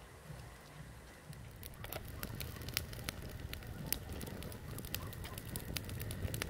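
Campfire crackling with irregular sharp snaps and pops, growing busier and louder about two seconds in, over a low rushing underneath.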